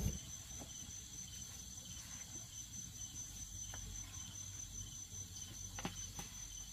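Insects chirring steadily at a high pitch, with a few faint clicks scattered through.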